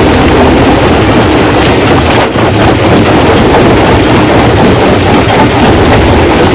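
Rock crushing machine running, with a loud continuous clatter and rumble of stone being broken and rattling through it.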